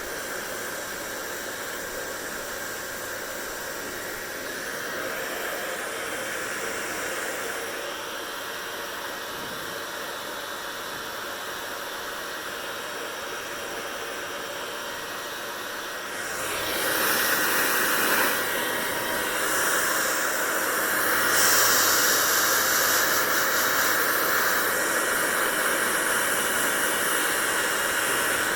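Hair dryer blowing steadily, a constant rush of air. About two-thirds of the way through it turns louder and brighter, and its tone shifts again a few seconds later.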